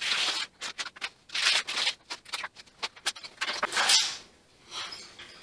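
Quick, irregular scratchy scraping strokes along the joint between a glass shower panel and the tiled wall, stopping briefly a little after four seconds in.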